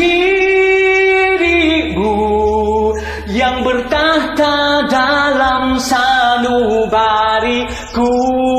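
Man singing a Malay pop ballad solo, holding long notes with a wavering pitch and moving through shorter sung phrases between them.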